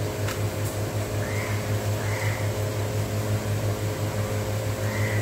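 A steady low mechanical hum, like a fan or appliance running, pulsing slightly and evenly throughout.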